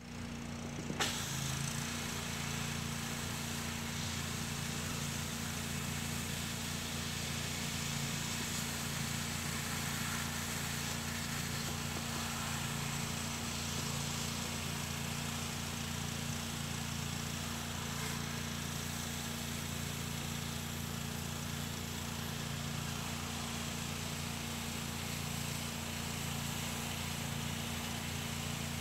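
A pressure washer's gas engine running steadily: a constant hum under an even hiss.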